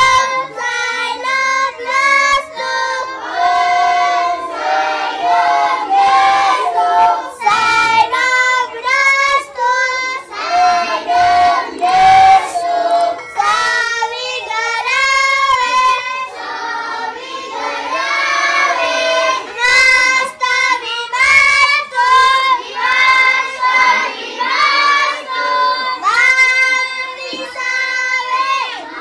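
A group of young schoolchildren singing a prayer together, a grace sung before their midday meal. The singing runs on in short melodic phrases.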